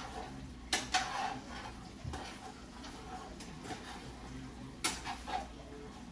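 Kitchen dishes and utensils clattering: a few scattered clinks and knocks, two around a second in and two more near five seconds, over a faint steady hum.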